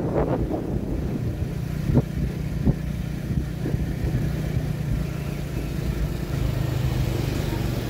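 A road vehicle's engine running steadily, with a couple of short knocks about two and three seconds in.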